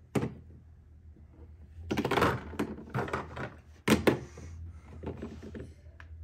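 Plastic toy plates and large Lego blocks clattering and knocking on a plastic toy kitchen counter: a click at the start, a run of clatter about two seconds in, and sharp knocks near four seconds, then lighter rattling.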